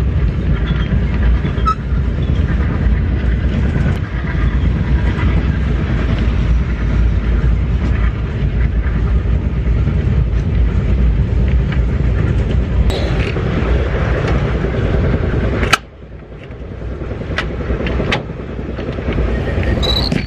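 Sleeper-class railway coach in motion, heard from inside: a steady low rumble of the running train with scattered sharp clicks and knocks. About three-quarters of the way through, a sharp click and the rumble drops abruptly, then builds back up.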